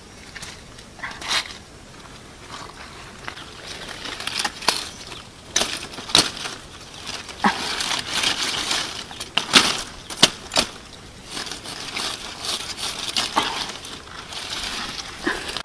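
A knife hacking pineapple fruits off their stalks among stiff pineapple leaves: a scatter of sharp cracks and snaps over a steady rustle of leaves brushing together.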